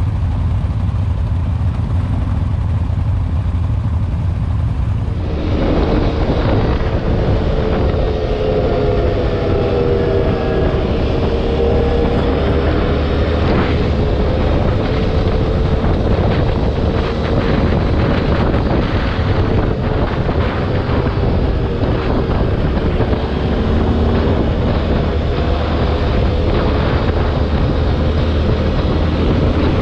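Linhai 500 Promax ATV engine running on the move, with low wind rumble on the microphone. About five seconds in the sound changes abruptly to a louder, brighter engine note whose pitch drifts up and down with the throttle.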